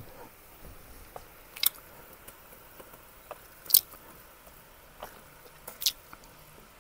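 Thin asparagus stalks being laid by hand into a shallow pan of boiling water: soft wet squishing and scattered sharp clicks, three of them louder and about two seconds apart.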